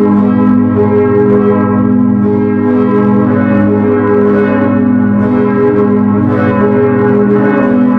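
A ring of ten church bells rung one after another, the strikes overlapping into a continuous wash of bell tones at a steady loud level.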